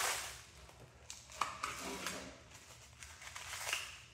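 Clear plastic wrapping crinkling and tearing in short separate bursts as it is cut and pulled off a crankshaft.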